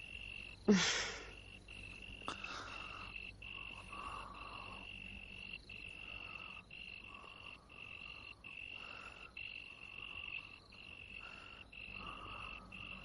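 Night ambience of crickets and frogs: a steady high cricket trill with brief breaks, and frogs croaking about once a second. About a second in, a short loud noise sounds over it.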